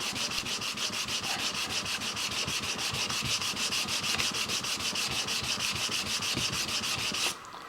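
360-grit sandpaper rubbed over a switch plate in quick, even back-and-forth strokes, about six a second, working out the coarser 280-grit scratches. The rasping stops abruptly near the end, leaving a faint steady background noise.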